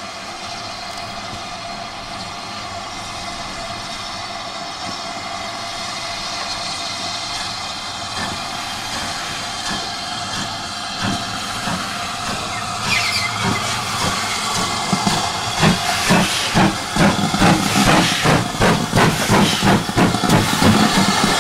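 GWR 4300 class 2-6-0 Mogul steam locomotive no. 5322 approaching and running past slowly under steam. A steady hiss of steam grows louder, and in the last few seconds its exhaust beats come through loud and regular, about one and a half a second.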